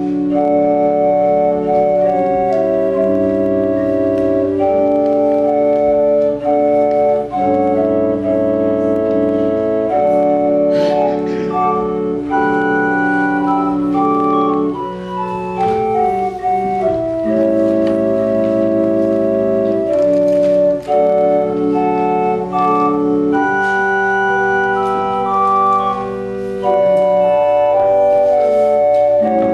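Organ playing offertory music in slow, sustained chords, with two runs of notes stepping downward in the upper voice partway through.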